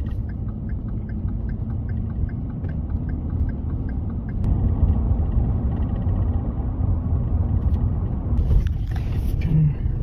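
Road noise inside a moving vehicle's cabin: a steady low rumble of engine and tyres, getting louder about halfway through. A light regular ticking about three times a second runs through the first few seconds, and a short hiss comes near the end.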